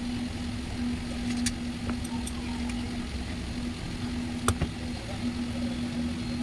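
A motor running with a steady hum, with a few light clicks and one sharper tap about four and a half seconds in.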